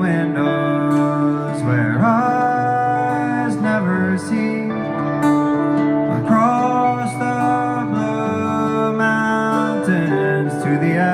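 Live folk song: guitars playing with a voice singing the melody over them.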